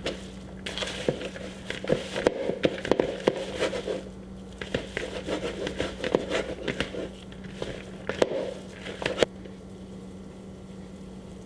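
Seasoned ground beef being mixed by hand in a bowl: irregular wet squishing and clicking that stops about nine seconds in.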